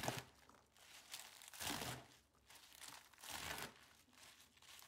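Chef's knife slicing through a pile of fresh spinach leaves onto a plastic cutting board: faint, crisp leafy cuts, one about every second and a half.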